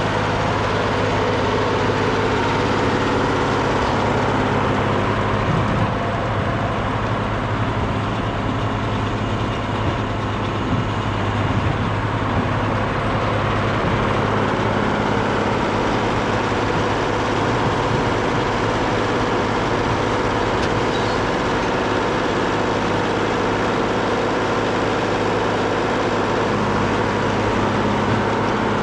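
Deutz D130 06 tractor's diesel engine running steadily, pulling a John Deere 566 round baler that is working behind it.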